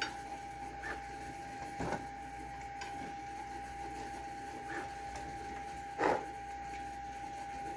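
Steady faint high-pitched whine, with two soft knocks about two and six seconds in from metal 3D-printer frame parts and tools being handled.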